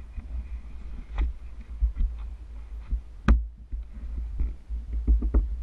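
Low rumble with scattered knocks and taps, picked up through the plastic whitewater kayak's hull that carries the camera as the paddler shifts in the boat on the grass; the loudest knock comes about three seconds in.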